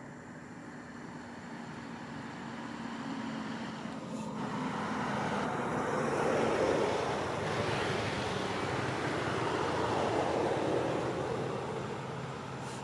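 A vehicle passing by: road noise swells from about four seconds in, is loudest in the middle and fades toward the end, over a faint steady low hum.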